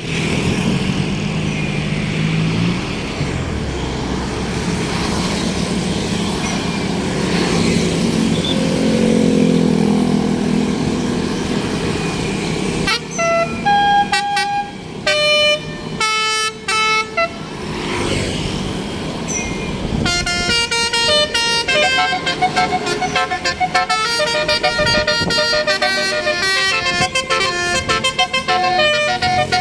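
Tour bus engine running, its pitch rising briefly as it revs, then a 'telolet basuri' musical air horn playing a melody in short stepped notes, starting in bursts a little before halfway and playing a continuous tune through the last third.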